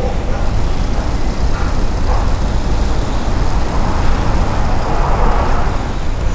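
Steady low rumbling noise with a hiss over it, swelling briefly about five seconds in.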